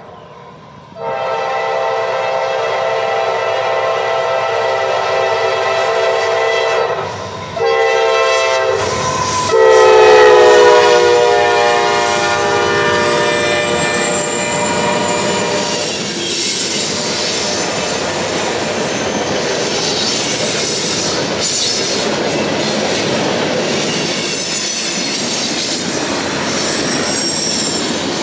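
A Norfolk Southern freight train's diesel locomotive horn sounds a long blast, a short one, then a final long blast, the grade-crossing signal. The final blast is loudest and drops in pitch as the lead locomotives pass. After the horn stops, the freight cars roll by with steady wheel clatter and occasional faint wheel squeal.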